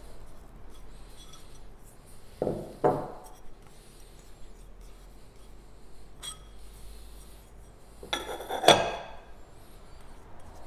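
Small bowls clinking and knocking together as condiments are tipped and scraped from one into another: two knocks about two and a half seconds in, a faint tick midway, and a louder ringing clink near the end.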